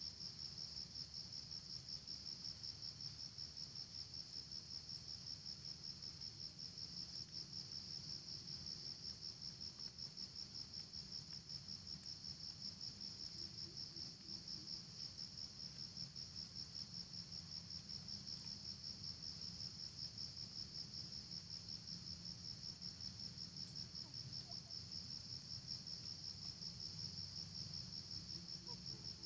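Insects, crickets or cicadas, keep up a steady, high-pitched trill with a fast, even pulse, over a faint low hum.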